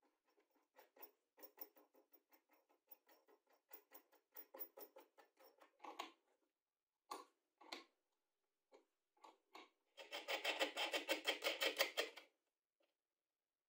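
Steel hex nuts being threaded onto bolts and turned with an open-end wrench: a run of small, irregular clicks, then a dense rattle lasting about two seconds near the end.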